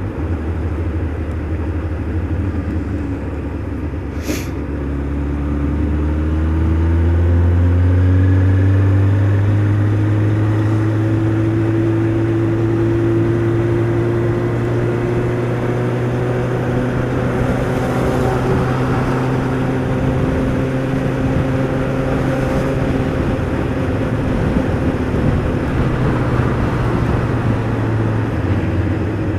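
Honda Hornet 600 motorcycle's inline-four engine running under way. Its pitch climbs slowly over about ten seconds as the bike gathers speed, then holds steady at cruise, over a steady rush of wind and road noise.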